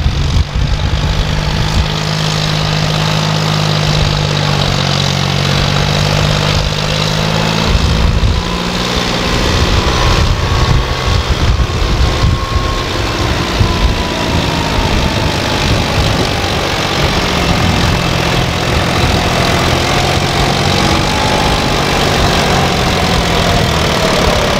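John Deere 5050D tractor's three-cylinder diesel engine running under heavy load, pulling a trolley heaped with earth through soft soil. The engine note is steady for the first eight seconds or so, then grows less even.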